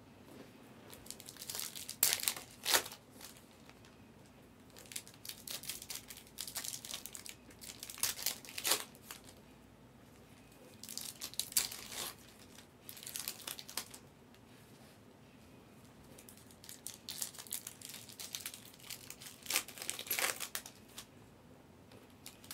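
Foil trading-card pack wrappers being torn open and crinkled, in several bursts of sharp crackling with quieter stretches between.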